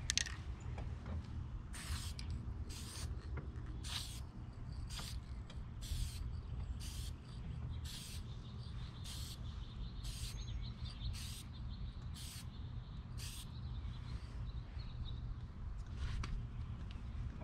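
Aerosol spray-paint can hissing in short bursts, about one a second, as a light coat goes onto a car interior panel; wind rumbles low on the microphone underneath.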